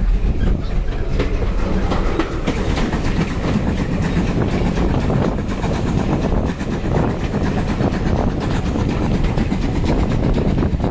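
Passenger carriage of a steam-hauled heritage train running: a steady rumble with wheels clicking and clattering over the rail joints, heard through an open carriage window.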